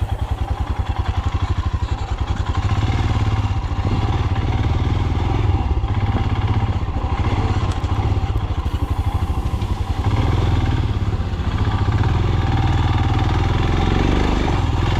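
Royal Enfield Himalayan's single-cylinder engine running with a steady, even pulsing beat as the motorcycle is ridden along a rough off-road forest trail.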